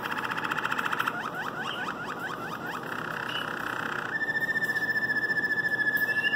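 Waterslager canary singing: fast rolling trills, then a run of quick gliding notes, then about four seconds in a long, steady, slightly falling whistled note that carries on to the end.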